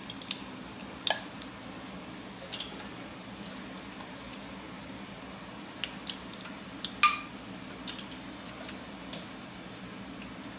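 Sharp clicks and pings, about nine, scattered over a steady low hum, the loudest about seven seconds in: two-piece canning-jar lids popping down as the hot half-pint jars seal, among the clinks of jars being lifted out with jar-lifter tongs and set down.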